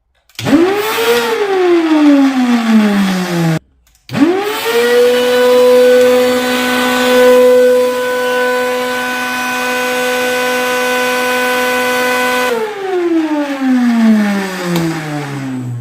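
Henry vacuum cleaner motor switched on and straight off, spinning up and winding down, then switched on again about four seconds in, running at a steady high whine with an extra lower hum for about eight seconds before it is switched off and winds down. The sound is odd enough to be called broken and like a motorbike.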